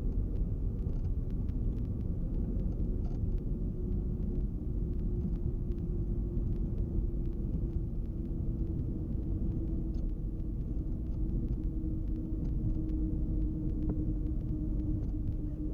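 A Cessna 310's twin piston engines running at low power, heard inside the cabin: a steady drone with a faint hum that slowly drops in pitch.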